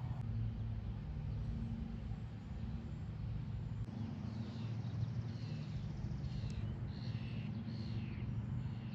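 A steady low mechanical hum, with a run of short, quick bird chirps from about four seconds in.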